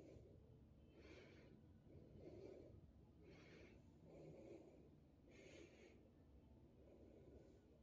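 Near silence, with a faint soft hiss coming and going about every one to two seconds.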